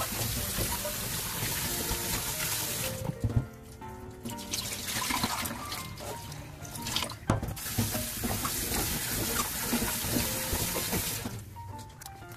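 Kitchen tap running into a stainless steel bowl in a sink while okra is rinsed and rubbed by hand in the water. The flow breaks off briefly about three seconds in and stops near the end. Light background music plays.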